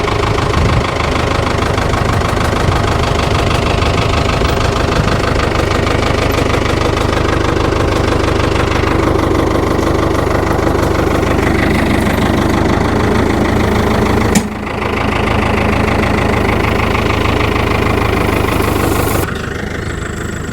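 Farm tractor's engine running steadily with a knocking clatter; its note shifts partway through, a single sharp knock comes about two-thirds of the way in, and the engine drops back near the end.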